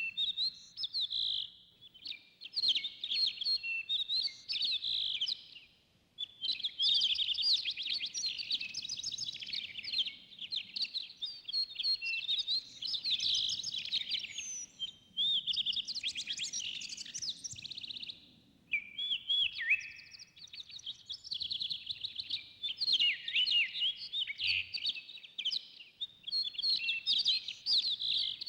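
Several songbirds singing and chirping at once, their quick, warbling phrases overlapping, with brief lulls now and then.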